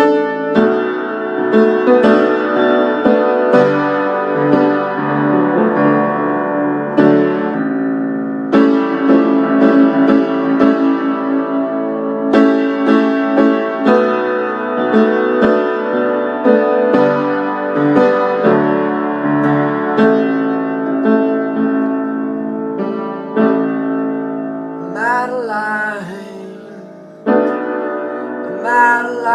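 Solo acoustic piano playing an instrumental passage of slow, sustained chords struck at a regular pulse. Near the end a man's voice comes back in, singing over the piano.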